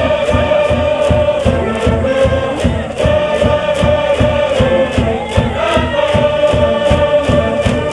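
High school baseball cheering band playing a cheer tune: brass over a steady drumbeat of about four strokes a second, with a crowd of students chanting along in unison.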